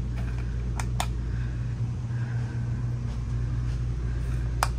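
Light switches clicking off: two clicks close together about a second in and another near the end, over a steady low hum.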